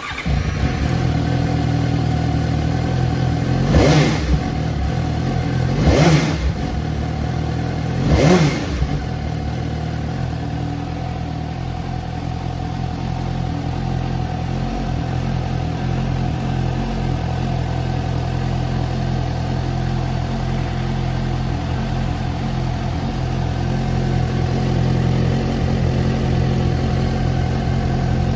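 2021 Suzuki GSX-S750's 749 cc inline-four engine starting up, then given three short blips of the throttle about two seconds apart before settling into a steady idle.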